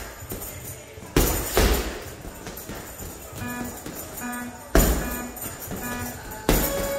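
Punches from 10 oz Winning boxing gloves landing on a hanging heavy bag: four heavy thumps, two in quick succession about a second in, one a few seconds later and one near the end. Background music with short repeated notes and a jingling beat plays under them.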